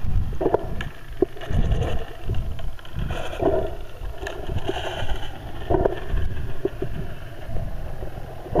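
Muffled underwater water noise picked up by a camera below the surface: an uneven low rumble with brief squeaks and clicks scattered through it.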